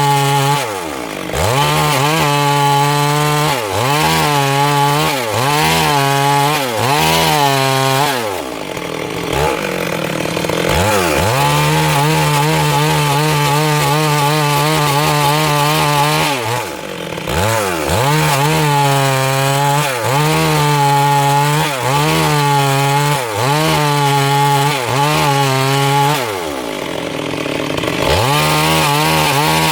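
Stihl MS 382 two-stroke chainsaw running at full throttle through wood, its engine note sagging and recovering again and again under load. The throttle is let off several times, the longest about a third of the way in and again near the end.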